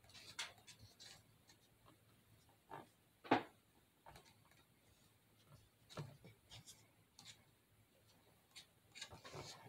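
Faint, scattered scraping of a wooden craft stick spreading spackle over a painted popcorn can, in short strokes, with one louder scrape about three seconds in.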